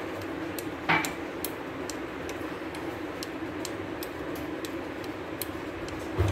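A small spoon ticking and clicking lightly as a tiny amount of paste is stirred and mixed, with one louder knock about a second in. A steady low hum runs underneath.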